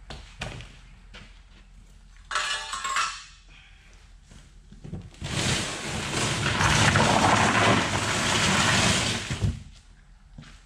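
Cardboard rustling and scraping as a radiator's shipping box is torn open and flattened and the radiator is slid out onto it. There is a short rustle about two seconds in, then a longer, louder stretch of about four seconds in the second half.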